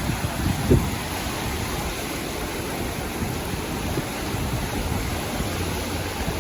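Sea surf washing onto a beach, a steady hiss of breaking waves, with a brief low rumble just under a second in.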